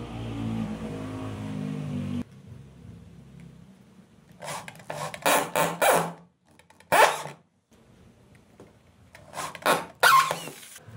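A steady hum cuts off about two seconds in. Then a corded electric drill bores into a wooden frame in three spells of short bursts, the bit cutting through the wood.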